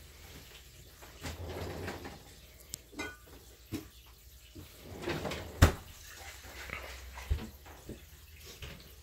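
Kitchen utensils and dishes knocking and clinking: scattered light clicks, a ringing clink about three seconds in, and a sharp knock a little past halfway, the loudest sound, with another knock soon after.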